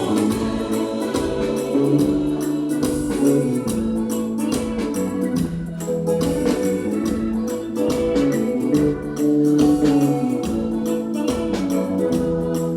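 Gospel music: an electronic keyboard holds organ-like chords over a steady percussion beat, with little or no singing.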